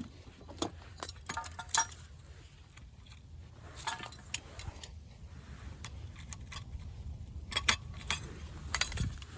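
Steel sockets and socket-wrench adapters clinking and clicking against each other as they are handled and fitted together. The sharp clinks come in clusters, about a second in, around four seconds in, and again near the end.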